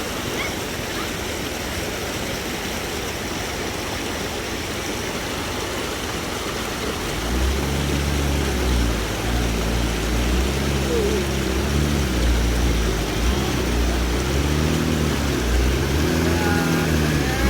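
Waterfall rushing steadily. About seven seconds in, the 4x4 off-road rig's engine comes in over the water, revving up and down again and again under load.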